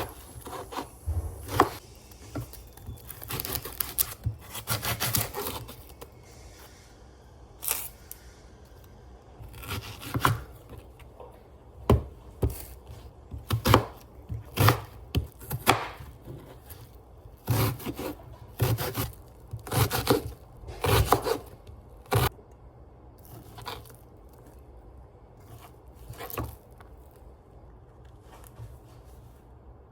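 Irregular handling noises: short scrapes, rustles and knocks of objects being moved and set down, coming in uneven clusters and thinning out in the last few seconds.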